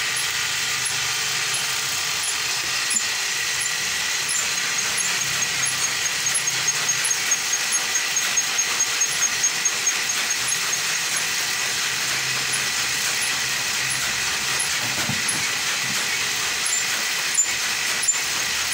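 Pirn-winding machine for weft bobbins running at full speed, a steady mechanical whir. Light high ticks repeat at an even pace of about two a second.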